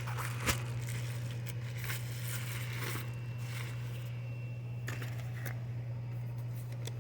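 Packaging crinkling and rustling in short bursts as items are unwrapped and handled, with one sharp click about half a second in, over a steady low hum.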